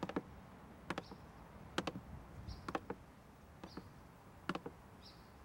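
Slow footsteps on bare wooden floorboards, six steps about one a second, each a quick heel-and-toe double knock, with faint short high squeaks between some steps.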